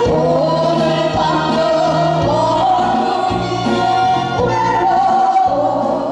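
Two women singing a Korean folk song (minyo) into microphones, with a wavering melody over instrumental accompaniment.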